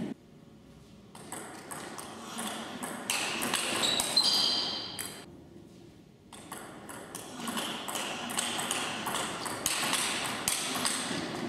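Table tennis rally: the ball clicks sharply off the rackets and bounces on the table in quick succession, in two runs with a short lull about six seconds in.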